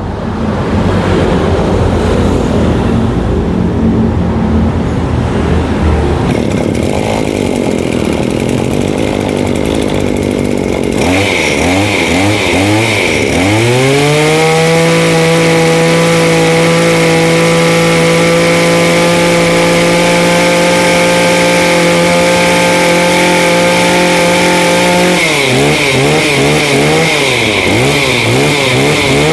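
Maruyama 23cc two-stroke brush cutter engine running roughly at low speed, then opened up about eleven seconds in. Its pitch climbs and holds high and steady, a lively, punchy pull. Near the end the revs drop back and rise and fall with a few throttle blips.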